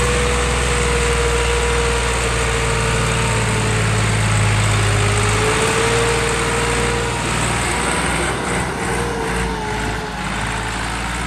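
Farm tractor's diesel engine running hard under heavy load, straining to haul a brick-laden trolley out of deep mud. The engine note is steady, then eases and grows uneven about eight seconds in.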